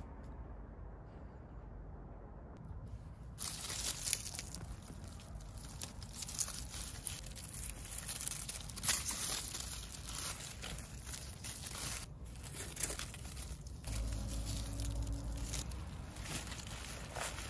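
Radishes being pulled by hand from a planter of potting soil: withered leaves rustle and crinkle, and roots tear out of the soil. The rustling starts about three seconds in and goes on in irregular crackles.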